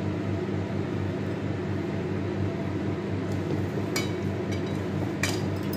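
Hands mixing and kneading soft mashed sweet-potato dough in a steel bowl over a steady low hum, with a few sharp metal clinks about four and five seconds in.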